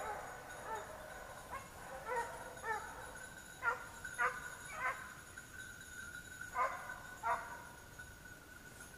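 Petit basset griffon vendéen hounds giving tongue in the cover: short baying barks about once a second, a pause, then two more, and quiet near the end. This is the voice running hounds give while working a scent.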